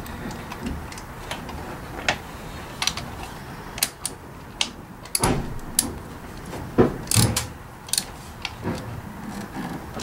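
Ratchet wrench and spark plug socket clicking and clinking in irregular bursts as a spark plug is tightened into the engine.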